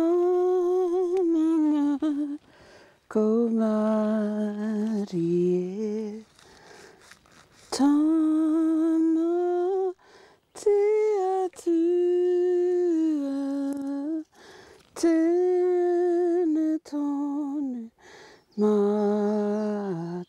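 A woman's voice singing a slow, chanted prayer: about eight drawn-out phrases, each held on a steady note and dropping at its end, with short breaths between.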